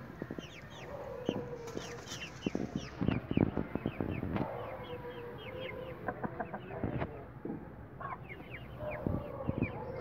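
Rooster and hens clucking, with a few drawn-out lower calls, over a steady stream of short, high, falling chirps. Scattered sharp knocks come in clusters.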